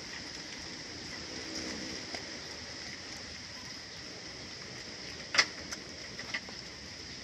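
A few sharp knocks from goat kids jostling against the bamboo rails of their pen, the loudest about five and a half seconds in, over a steady background hiss.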